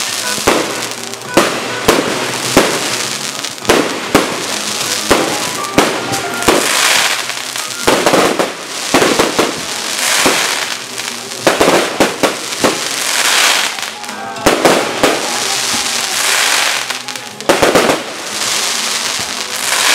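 Aerial fireworks display: shells bursting in a string of sharp bangs, about one every second or so, with swells of hissing between them as the bursts shower sparks.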